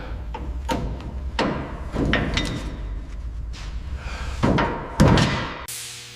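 A series of about eight metal clanks and knocks, several ringing briefly, over a steady low rumble that cuts off abruptly shortly before the end.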